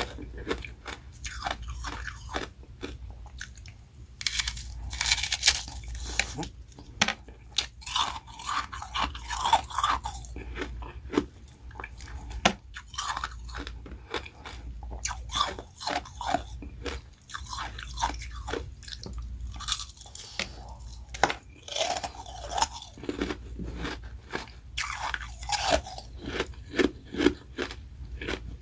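Close-miked biting and chewing of ice: carbonated ice rounds and refrozen freezer-frost shaved ice crunching and crackling between the teeth in quick, irregular bites.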